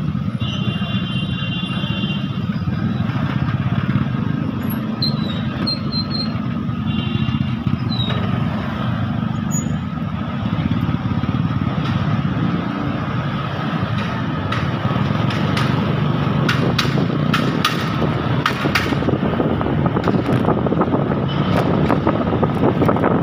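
Motor scooter riding in dense city traffic: engines idle and run at low speed around it, with a high beeping tone heard twice in the first half. About halfway through, the scooter picks up speed and wind buffets the microphone.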